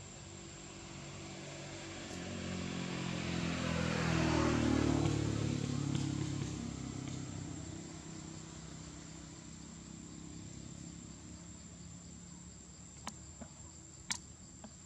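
A motor vehicle passing on a nearby road: its engine grows louder, peaks about five seconds in with its pitch dropping as it goes by, then fades away.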